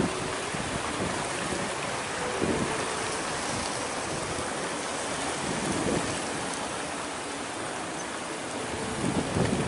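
Steady, even hiss of wind over open water, with gusts starting to buffet the microphone near the end.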